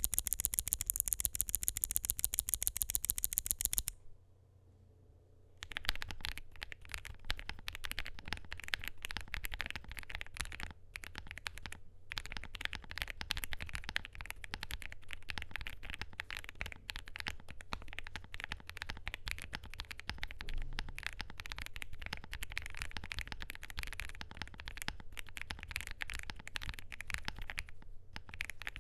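Typing on a mechanical keyboard, a KBDfans Phase One 65 gasket-mount board with a polycarbonate plate and lubed, filmed CIDOO Matte switches. It opens with about four seconds of rapid, evenly spaced sharp clicks, goes quiet for a moment, then settles into steady irregular typing with a few short breaks.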